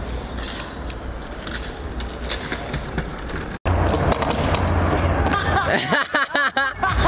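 A few sharp clicks and knocks from a stunt scooter over street background noise. About three and a half seconds in the sound cuts off suddenly and comes back louder, with a steady low hum and a run of quick warbling tones.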